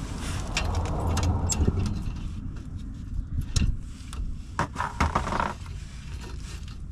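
Metal clinks, knocks and scraping of hand tools and exhaust parts during work on a car exhaust clamp, several sharp knocks about halfway through, over a steady low rumble.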